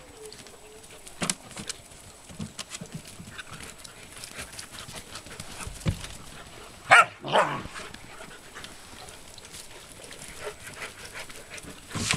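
Alaskan malamute puppies play-fighting, with scattered scuffling on the dirt and two short, sharp puppy barks in quick succession about seven seconds in.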